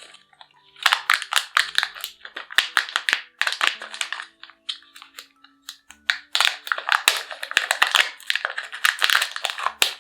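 Crinkling and crackling of plastic candy wrapping being handled and torn open, in two long spells of quick rustles, over faint background music.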